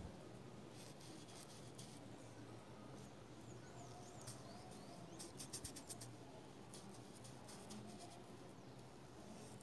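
Near silence: faint room tone with a few soft scratchy clicks of a paintbrush dabbing acrylic paint onto a rubber mat, the loudest cluster about halfway through.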